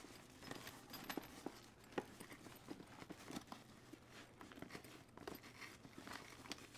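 Faint rustling and scuffing of nylon fabric, with scattered small clicks and taps, as a padded sleeve is pushed down inside a soft disc golf bag. The sleeve is catching on Velcro halfway down the bag's inner wall.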